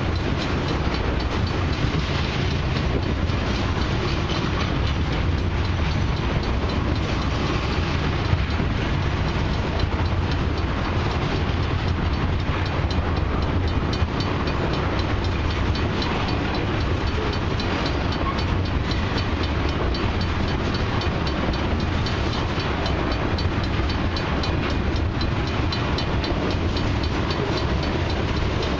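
Loaded crude oil tank cars of a long freight train rolling past: a steady rumble of steel wheels on rail with fine, continuous clicking.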